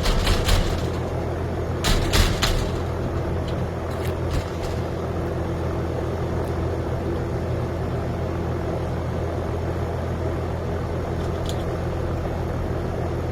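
A few sharp metallic clicks and knocks from hand work on a screen-door profile lock and its screw, grouped in the first two and a half seconds, with a couple more around four seconds in and one near the end. Under them runs a steady low mechanical drone.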